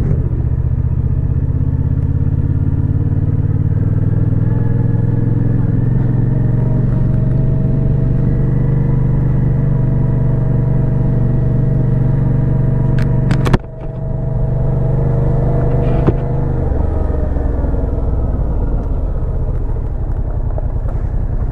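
Yamaha FZ-07's parallel-twin engine running steadily while riding. About two-thirds of the way through there is a sharp click and a brief drop in level, and soon after the engine note settles lower.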